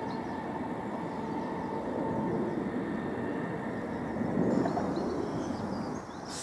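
Steady outdoor rumble with small birds chirping, swelling louder briefly about four and a half seconds in; near the end it drops suddenly and gives way to a hissier sound.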